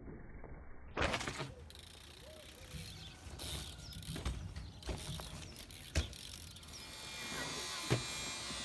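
A BMX bike's freewheel hub clicking as it coasts over paving stones, with sharp knocks of the wheels coming down about a second in, around six seconds in and near the end.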